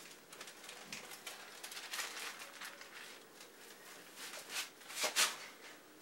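Rustling and scraping of hands and a pencil on a large paper drawing, a run of short brushing sounds with a louder scrape about five seconds in.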